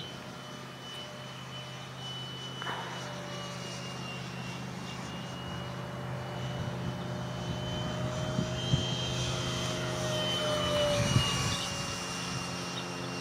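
Electric ducted fan of a Freewing 64mm MiG-15 RC jet in flight: a steady high whine, with a fainter lower tone that wavers in pitch. It grows louder toward the last few seconds, then eases near the end.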